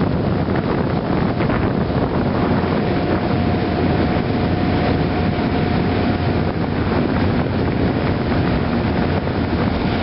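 Small motorboat under way, its engine running steadily, with wind buffeting the microphone. A faint steady whine joins about three seconds in.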